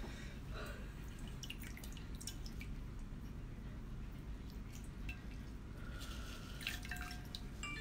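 Scattered drips and small wet clicks from a raw geoduck being handled over a glass of liquid, with a steady low hum underneath.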